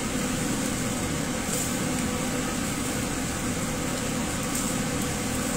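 Steady fan-like hum of commercial kitchen ventilation over a gas range, with a steel ladle stirring thick, simmering sauce in a pan.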